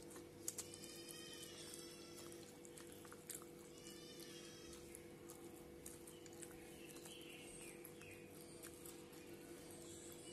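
Faint eating sounds from fingers and mouth: scattered short clicks and smacks as food is eaten by hand. Twice, a short run of faint high-pitched animal calls sounds in the background over a steady low hum.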